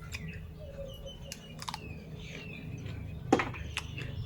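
Small birds chirping on and off, with scattered sharp clicks and one louder knock about three seconds in, over a steady low background rumble.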